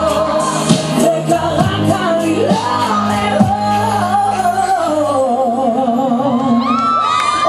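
A song: a singer holding long, wavering notes over instrumental music, with a steady beat through the first half.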